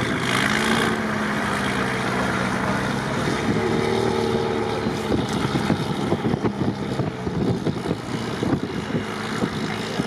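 Engines working under load as a Unimog truck tows a stuck SUV up out of deep snow on a tow strap. A steady engine note holds for the first four or five seconds, then gives way to irregular crackle and noise.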